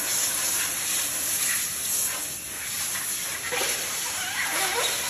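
Steady loud hiss at a rubber molding press, with a few short squeaks from about three and a half seconds in as moulded rubber grommets are pulled from the open mold.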